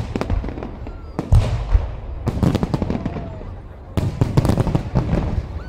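Aerial fireworks bursting overhead: a bang about a second in, another about two seconds in and another about four seconds in, each followed by a dense run of crackling.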